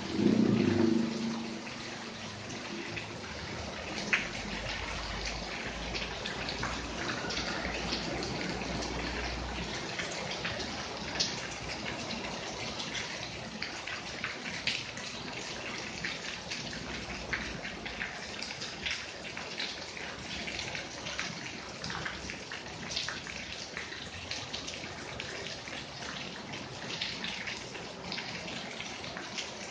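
Steady rain falling, with runoff streaming from the roof edges and many sharp taps of drops landing close by. A louder low rumble is heard in the first second or so.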